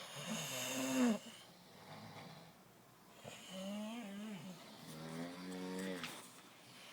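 Snoring: three drawn-out, pitched snores. The loudest comes at the start, a second about halfway through, and a third soon after it.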